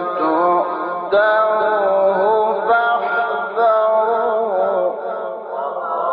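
A male Quran reciter chanting in the melodic mujawwad style, drawing out long ornamented notes that slide and waver in pitch. The voice eases off a little about five seconds in.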